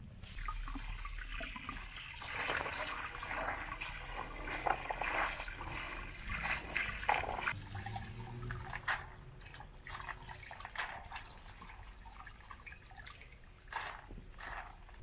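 Water splashing and dribbling as hands scoop and rub soaked chickpeas in a basin of water. The sound comes in irregular handfuls, busiest in the first half.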